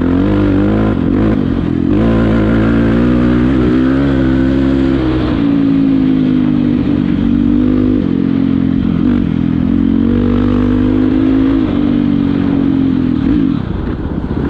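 Enduro dirt bike engine running hard under throttle. Its pitch shifts up and down every few seconds and falls away near the end as the throttle is rolled off.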